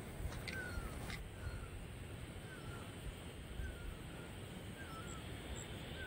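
A bird repeating a short, clear call that wavers downward in pitch, about once a second.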